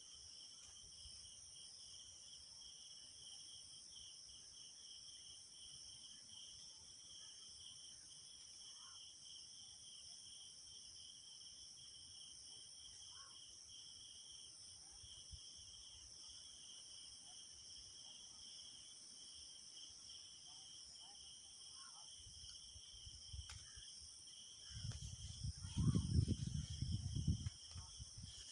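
Steady high-pitched insect chorus, a continuous pulsing buzz on several pitches. A burst of low rumbling noise comes near the end.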